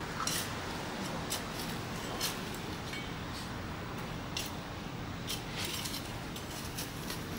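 Digging in dry, sandy garden soil: a shovel and a puppy scraping and scuffing at the dirt, a steady rustling with scattered small clicks and taps.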